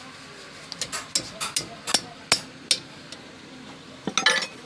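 Irregular sharp metallic clinks and taps of hand tools against metal parts, about eight spread through the first three seconds, with a denser cluster of knocks near the end.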